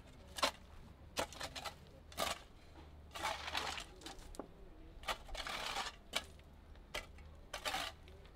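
Shovels digging a grave in stony earth: irregular sharp clinks and knocks, about one or two a second, with a couple of longer scraping sounds.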